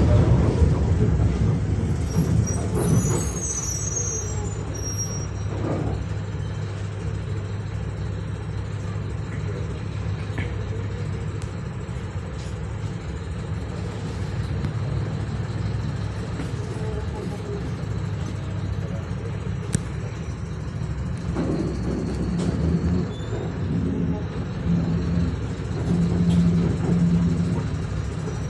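Inside a moving Mercedes-Benz Ayco Magno Sport G1 city bus: the engine runs with a steady low drone, mixed with road noise and a few light rattles and clicks from the body. The engine grows louder and deeper about three-quarters of the way through.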